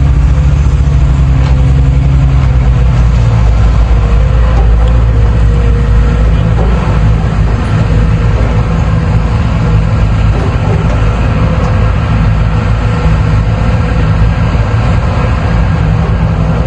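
JCB excavator's diesel engine running steadily under work, its note shifting about three seconds in.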